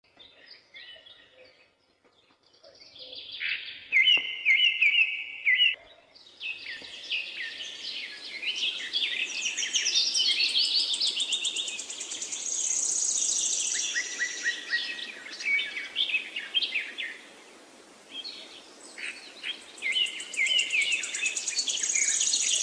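Several birds singing and calling: a chorus of high chirps and trills that starts sparse and becomes dense a few seconds in.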